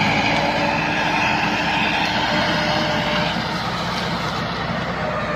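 Massey Ferguson 385 tractor's four-cylinder diesel engine running steadily under heavy load, pulling a fully laden trolley out of a field.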